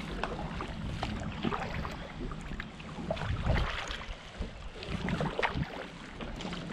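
Water splashing and dripping around a kayak in irregular small bursts, with wind rumbling on the microphone.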